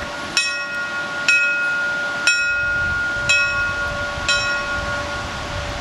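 Small church bell hung from a metal frame, struck about once a second, five strikes in all, each ringing on so that the tones run together into one steady hum.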